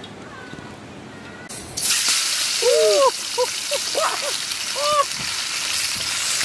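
Fish frying in hot oil in a steel wok over a wood fire: a loud, steady sizzle that starts suddenly about two seconds in. A few short calls that rise and fall in pitch sound over it.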